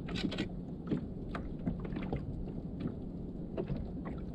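Scattered short clicks and knocks of a hook being worked out of a fish on a kayak, over a steady low rush of wind and water.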